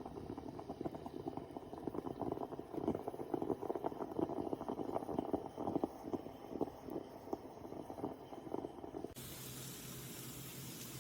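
Stovetop moka pot brewing: coffee bubbling and gurgling up into the upper chamber as a dense run of small irregular pops. About nine seconds in it cuts off suddenly, and a steady low hum follows.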